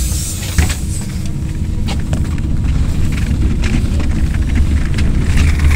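MAZ-107 city bus under way, heard from inside the passenger cabin: a low engine drone and road rumble that grows slightly louder as the bus gathers speed, with a few short knocks and rattles.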